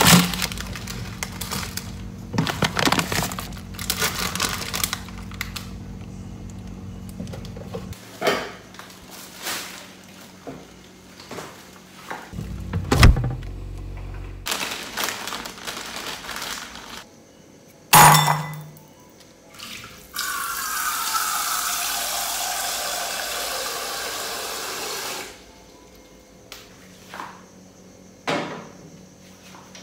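Water from a tap rushing into a metal cooking pot for about five seconds, with a tone in the rush that falls as it runs. Before it come scattered knocks and thumps of handling, the loudest a pair of heavy knocks.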